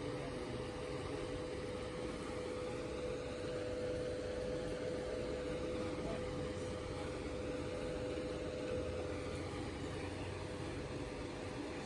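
A steady mechanical hum with a constant mid-pitched tone over an even background noise.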